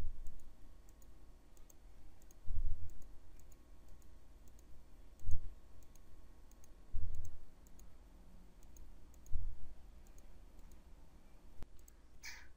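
Quiet room tone with several short, dull low thumps, about two seconds apart, and a brief sharp click near the end.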